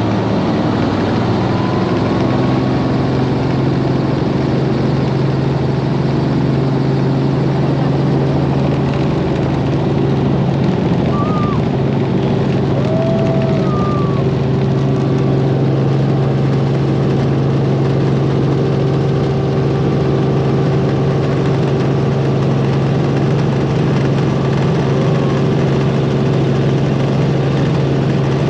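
Helicopter engine and rotor running, a loud, steady drone with an even hum that steps up slightly in pitch about two seconds in.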